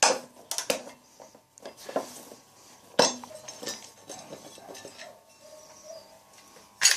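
Socket wrench and bolts clinking against metal parts while an electric water heater is being unbolted: a scatter of sharp metallic clinks and knocks, the loudest about three seconds in and another right at the end.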